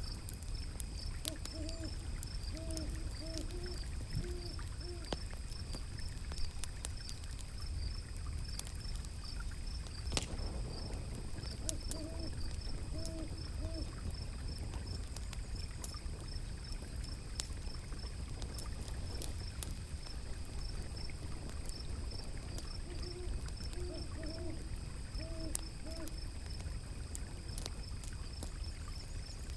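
Ambience of a crackling fire, its scattered sharp pops over the steady rush of flowing river water. Three short runs of low hooting calls come near the start, about twelve seconds in, and near the end.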